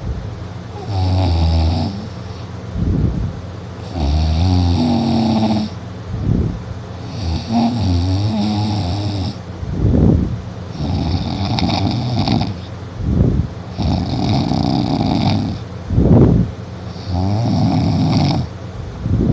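A person snoring loudly in heavy sleep after drinking. A long, rough snore comes about every three seconds, with a short, sharp puff of breath between most of them.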